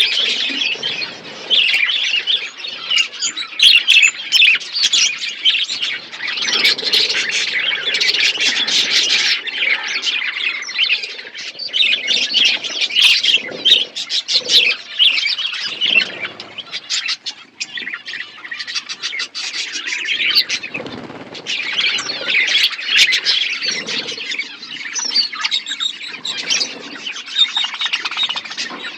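A group of small pet birds chirping, chattering and squawking without a break, many short high calls overlapping, with occasional low thumps mixed in.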